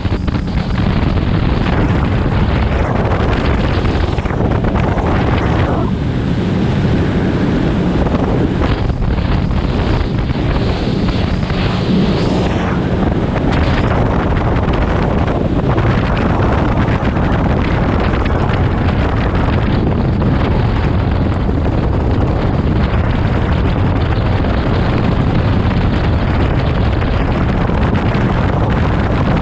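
Bass boat's outboard motor running at speed, with heavy wind noise buffeting the microphone and water rushing past the hull.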